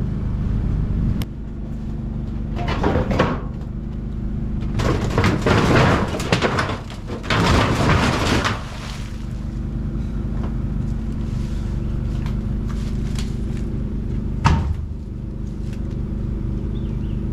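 Debris being torn loose and dragged down in several scraping, crashing stretches, then a single sharp knock later on, over a steady low engine hum.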